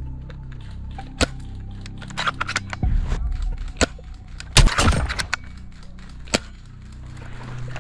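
Airsoft guns firing: separate sharp cracks about a second in and between two and four seconds, then the loudest cluster of snaps about four and a half seconds in, and one more crack a little past six seconds. The loudest cluster is the shot of a tuned JG BAR-10 spring bolt-action sniper rifle.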